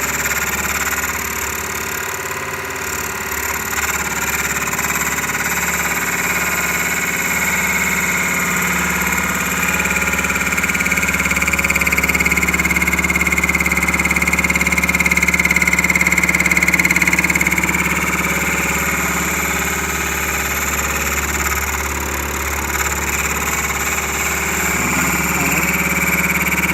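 Wood lathe running at raised speed, with a steady motor hum and a high whine that grows louder through the middle and eases later, as a turning tool works inside a drilled hole in the spinning wood to straighten it.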